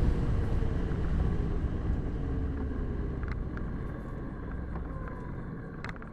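Motorcycle slowing down: engine and wind noise fade steadily, and the engine note falls, as the bike rolls off for a roundabout.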